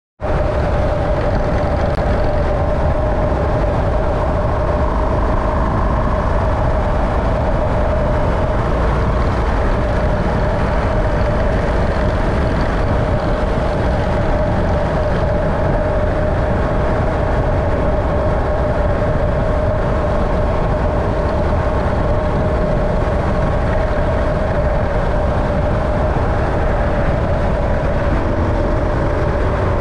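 A vehicle running steadily at an even speed: a constant low rumble with a steady hum over it.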